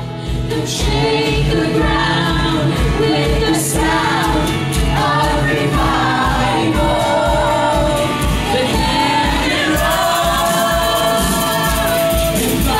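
Live worship band playing a praise song: several voices sing together over acoustic guitar, with a steady low beat about twice a second.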